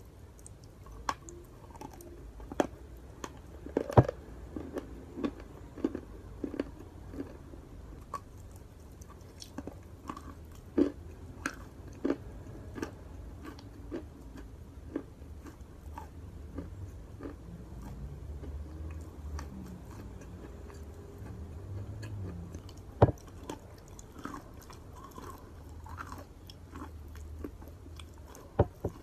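A person biting and chewing pieces of chalk coated in creamy chalk paste, close up. Irregular sharp crunches sound between stretches of chewing, and a few crunches, about 4, 11 and 23 seconds in, are much louder than the rest.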